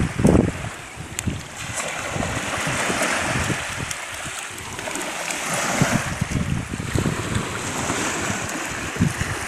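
Small waves washing up over wet sand at the water's edge, with wind buffeting the microphone in irregular low gusts.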